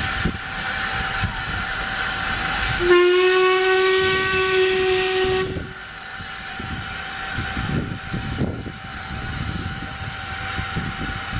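Steam hissing from a Sri Lanka Railways Class B1A steam locomotive, then one steam whistle blast of about three seconds starting about three seconds in, its pitch rising slightly at the start and then holding steady; the whistle is the loudest sound, and the hiss is quieter after it stops.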